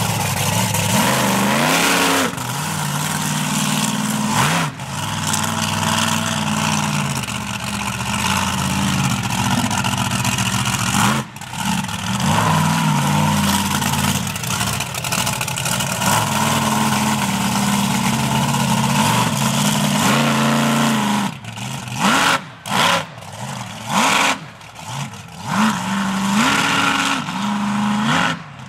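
Monster truck engine revving hard under heavy throttle, its pitch swinging up and down again and again as the truck is driven on grass. Toward the end it turns to several short, sharp throttle blips with brief drops between them.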